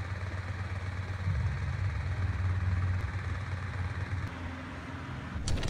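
A steady low rumble with a hiss above it, easing slightly near the end.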